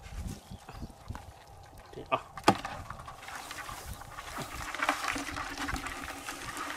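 Handling and rustling noises as a crab is carried over grass and put into a plastic bucket, with a sharp knock about two and a half seconds in.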